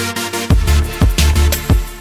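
Electronic background music, drum-and-bass style. A heavy bass line and a strong drum beat come in about half a second in.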